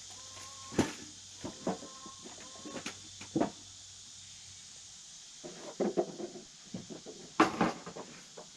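Scattered knocks and clatters of wooden boards being handled, the loudest about seven and a half seconds in, over a steady high hiss of insects.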